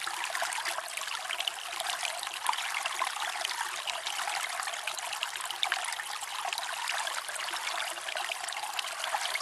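Steady trickling and splashing of aquarium water, a continuous hiss full of tiny crackling drips.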